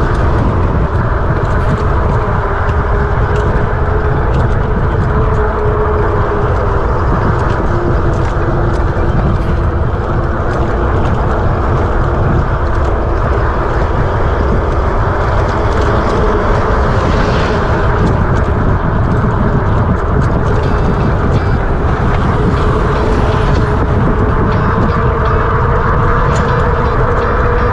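Steady, loud rush of wind and road noise on the microphone of a moving rider, with a faint steady hum running underneath.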